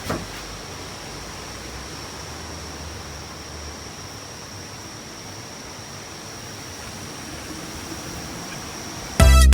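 A steady, even hiss with a faint high-pitched whine, and a single click at the very start. Loud upbeat music cuts in near the end.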